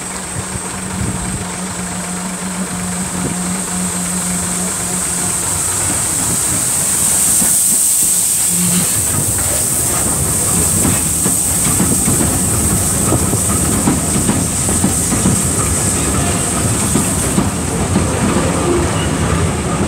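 Steam train passing close by: the locomotive's steam hiss swells as it draws level, then its LNER teak coaches roll past with their wheels clicking steadily over the rail joints. A steady low engine hum is heard in the first few seconds.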